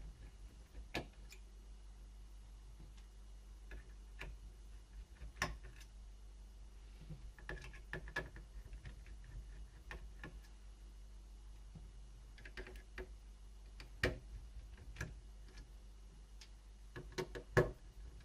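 Scattered small clicks and taps of laptop parts and a screwdriver being handled, over a faint low hum.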